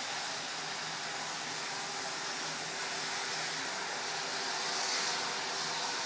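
A steady, even hiss of background noise with a faint low hum underneath.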